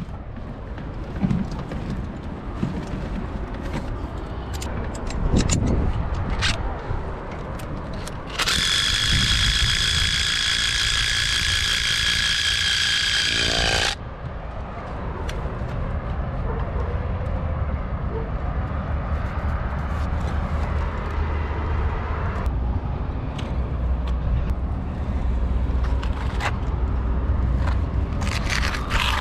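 An electric power tool runs with a steady high-pitched whine for about five seconds midway, then cuts off suddenly. Around it there is a low steady rumble and scattered short clicks and knocks.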